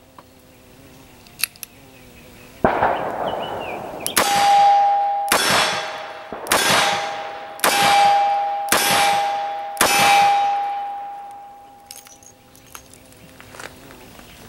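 A handgun fired in a string of about seven shots, roughly a second apart. Each shot is followed by a long ring that fades over about a second.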